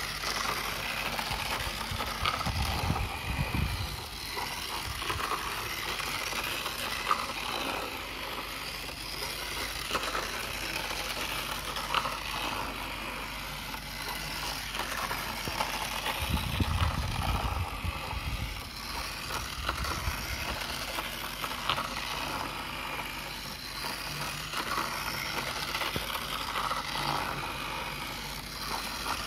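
Battery-powered plastic toy roller coaster train whirring and rattling as it runs around its plastic track and vertical loop, its small motor and gears clattering on the ridged track. A few sharp clicks come through, and there are two stretches of low rumbling, a couple of seconds in and again just past the middle.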